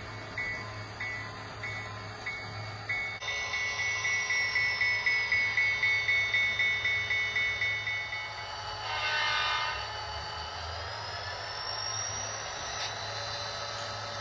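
Model diesel locomotive sound: a bell ringing in a steady rhythm for the first eight seconds or so, then a short horn blast about nine seconds in. A thin whine under it drops and then rises in pitch.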